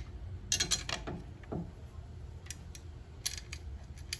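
Small metal clicks and light scrapes as a chrome license plate bracket and its mounting bolts are handled and fitted by hand, with a quick cluster of clicks about half a second in and single clicks after.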